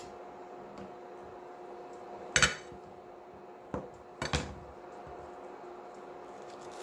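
Kitchen utensils knocking and clinking against dishes or a pan three times, the first about two seconds in and loudest, the other two close together a little later, over a steady faint hum.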